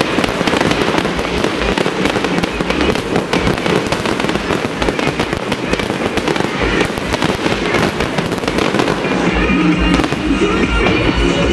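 Fireworks going off in a dense, continuous barrage: many overlapping bangs and crackles with no pause, with music playing underneath.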